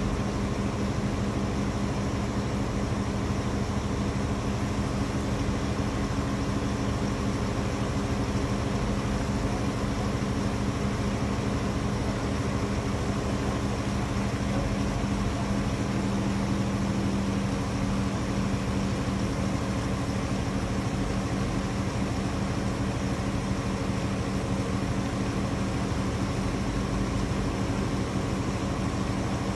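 Heavy diesel engine of the lifting crane running steadily under load, a constant low drone, with water pouring off the raised locomotive onto the rocks below as a steady hiss.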